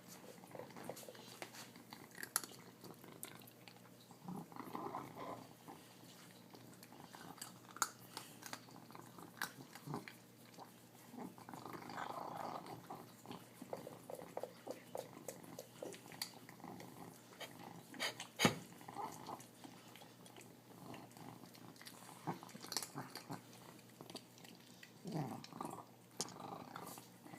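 Feral cat eating noisily: chewing and sharp clicks of food and teeth, with short piggy noises coming now and then between bites. The loudest sound is a single sharp click a little past halfway.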